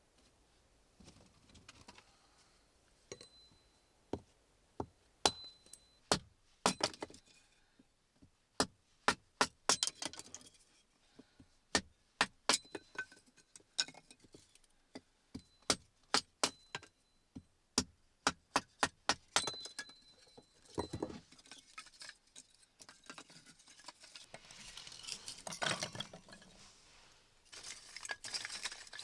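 Small hard objects being handled and knocked together: a long run of sharp clicks and clinks, some with a brief ring, and a stretch of rustling near the end.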